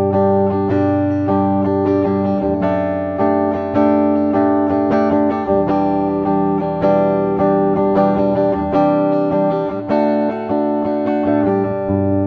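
Gibson SG Standard electric guitar played clean on its neck pickup: chords picked and strummed about once a second, each left ringing.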